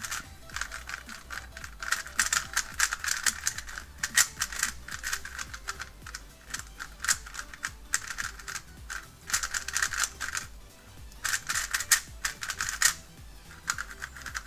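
Plastic Gans 356 Air UM speedcubes turned rapidly by hand, a boron-treated one and a normal one, in quick flurries of clicking, clacking layer turns with brief pauses between them. The boron cube feels dry and, by the owner's guess, unlubricated. The difference in sound between the two cubes is very subtle.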